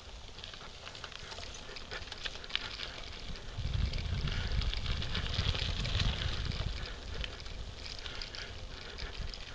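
Bicycle riding along a packed dirt trail: tyres crunching over grit with a scatter of small clicks and rattles from the bike, and a low wind rumble on the microphone that grows louder from about four to seven seconds in.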